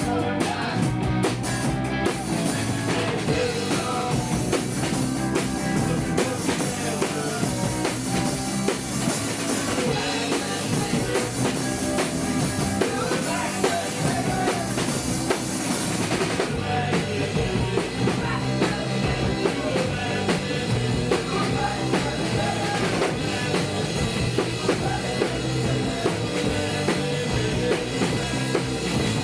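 Rock band playing a song on drum kit and electric guitar, with some singing. The sound turns less bright just past halfway.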